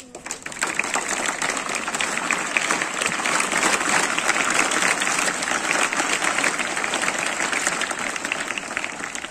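An audience of schoolchildren clapping: dense applause that starts at once, holds steady, and thins out near the end.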